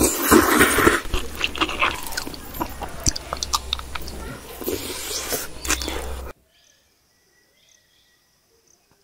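Eating with the fingers from steel plates: fingers mixing and scooping food against the metal, with clicks and chewing, over a low steady hum. It cuts off abruptly about six seconds in, leaving near silence.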